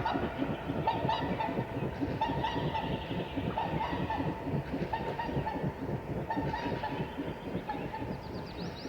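Whooper swans in flight: the rhythmic whooshing of their wingbeats, with short honking calls about every second and a half.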